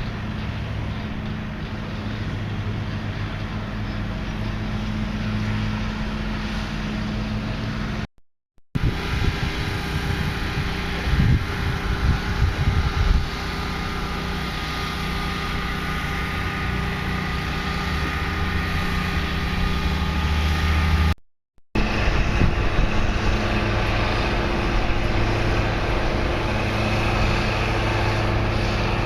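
Steady mechanical engine hum, broken by two short dropouts where the footage cuts, about eight and twenty-one seconds in. Louder uneven knocks come around eleven to thirteen seconds.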